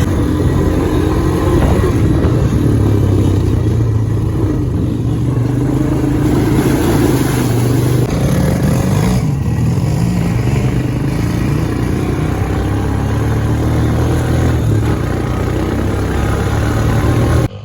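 Motor vehicle engine running while under way, its pitch wavering a little up and down.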